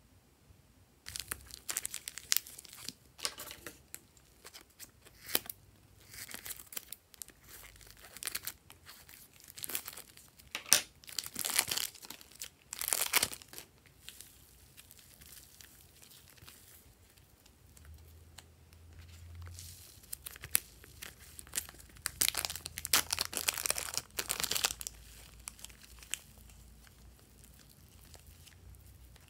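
Plastic wrappers of soft modelling clay crinkling and tearing as the packs are opened and the clay is squeezed out and pulled, in irregular spells of crackling with a quieter stretch in the middle.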